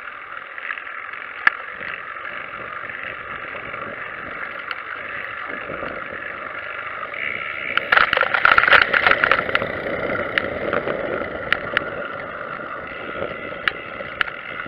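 Steady wind and rolling noise from a recumbent trike riding on a city street. About eight seconds in, a loud two-second clatter and rattle as the trike rolls over tram tracks, with a few single sharp clicks at other times.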